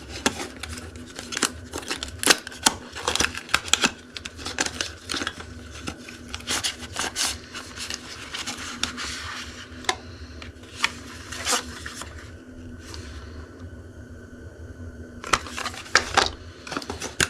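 Packaging being opened and handled by hand: irregular clicks, taps and rustles of plastic and cardboard over a steady low hum. There is a lull late on, then a final flurry of clicks.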